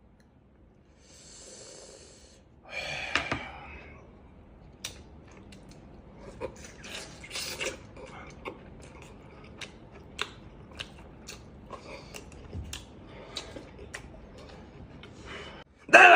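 A man eating, close up: chewing, with many small clicks and taps of cutlery and dishes, and a louder breathy sound about three seconds in.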